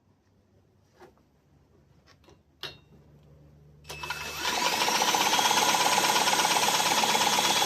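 Toro mower engine being spun over to test the old spark plug for spark: a few faint clicks, then from about four seconds in a loud, steady, fast mechanical whirring clatter.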